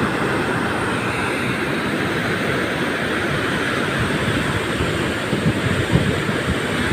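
Water released from the dam's spillway rushing and churning in the river below, a loud, steady rush of white water. A few gusts of wind buffet the microphone about five to six seconds in.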